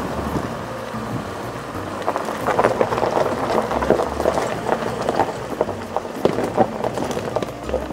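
Car tyres crunching over a gravel driveway as the car rolls slowly in: a dense, irregular crackle of stones that starts about two seconds in, over steadier road noise before it.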